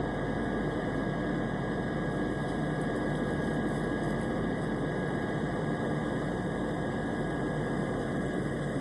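Airplane engine drone: a steady, even rush of noise with a faint high whine held in it, with no changes or breaks.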